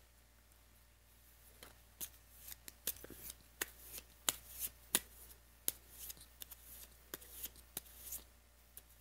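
Game cards being shuffled and handled by hand: an irregular run of crisp snaps and short papery slides that starts about a second and a half in and stops shortly before the end.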